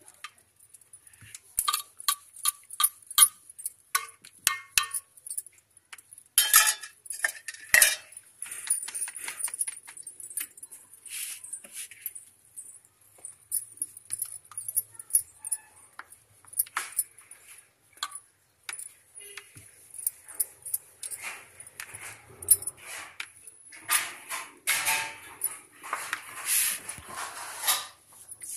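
Kitchen handling sounds while roti is rolled on a wooden board and cooked: bangles and metal utensils clinking and knocking, with a quick run of regular clinks in the first few seconds. A steady high hiss lies under it all, and the sound grows denser and louder near the end.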